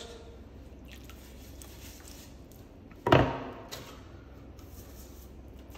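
Plastering hawk and trowel being handled while they are wetted: faint clicks, then one sharp knock about three seconds in, over a low steady hum.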